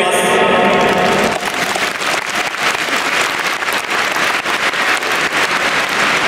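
Large crowd applauding, a dense clatter of many hands clapping that swells in about a second and a half in and carries on.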